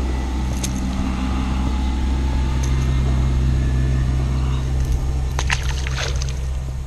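Boat outboard motor running steadily at an even pitch, with a few light clicks near the end.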